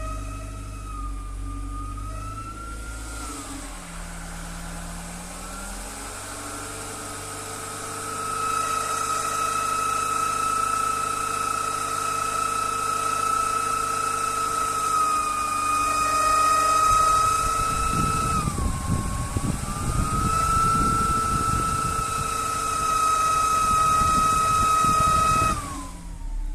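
Skoda Rapid 1.6 engine running with a steady high-pitched whistle from the accessory drive belt, which the owner puts down to the belt tensioner or idler pulley. The whistle dips in pitch briefly a few times and slides down as it stops near the end; a rough rushing noise joins it for the last several seconds.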